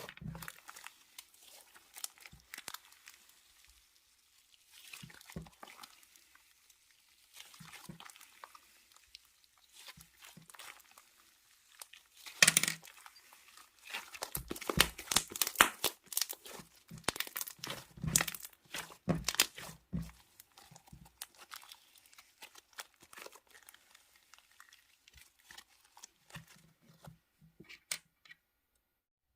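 Slime being squeezed and pressed by hand, making a run of crackling, crinkly pops. The crackles are densest through the middle and die away near the end.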